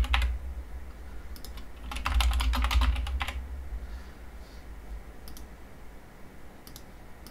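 Typing on a computer keyboard: a quick run of keystrokes about a second and a half in, lasting about two seconds, then a few single clicks near the end.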